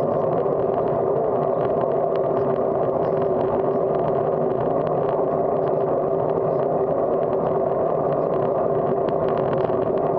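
Steady wind and road noise on a bicycle-mounted camera's microphone while riding, with a light rattling of many faint ticks.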